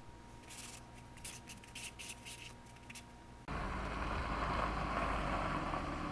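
Faint scattered scratching and clicking. About three and a half seconds in, it switches abruptly to a steady low rumble and hiss of a car moving.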